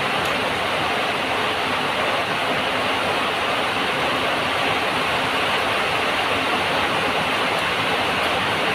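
A loud, steady rushing noise, even and unchanging throughout.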